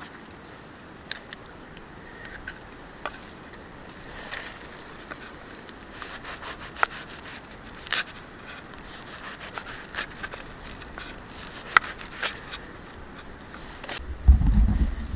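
A knife scraping and tapping on a carved wooden plate as grilled vegetables are slid off a skewer and bread is set down: scattered irregular clicks and scrapes. Near the end a louder low rumbling thump.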